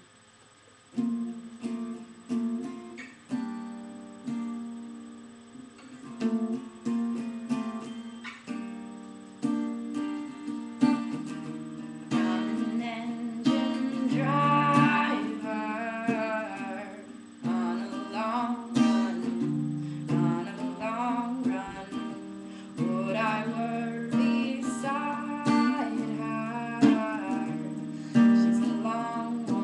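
Acoustic guitar strummed and picked, starting about a second in, with a singing voice joining partway through.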